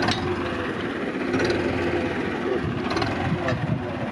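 Farm tractor engine idling steadily, with a few light knocks over it.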